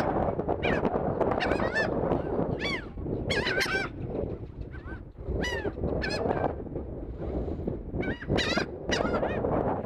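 A flock of seagulls calling over one another as they are fed: many short, overlapping squawks, some sliding down in pitch, over a steady low rumble.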